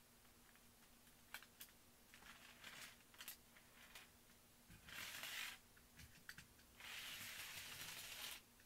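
Faint clicks and rubbing as a plastic N scale steam locomotive and tender are handled and set on the track, followed by two short stretches of a faint, even hiss, one about halfway through and a longer one near the end.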